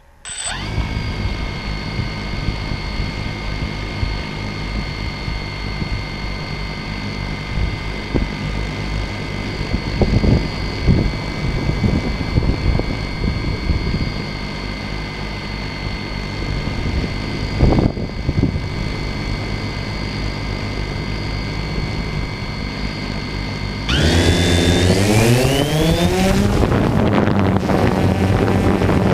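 DJI Phantom 2 quadcopter's electric motors and propellers start up and idle with a steady whine, close to the onboard camera, with a few low thumps midway. Near the end they spool up louder, the whine rising in pitch, as the drone lifts off.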